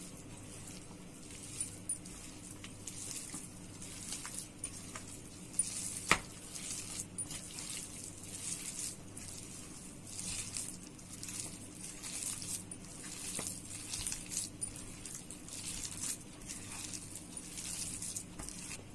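Hands squeezing and kneading a wet mash of drumstick pulp and ground urad dal in a steel plate: soft, irregular squelching and rustling, with a few light clicks, the clearest about six seconds in. A faint steady low hum runs underneath.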